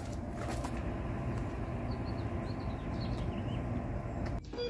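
Outdoor ambience: a steady low rumble of distant traffic with a few faint bird chirps in the middle, and a short click near the end.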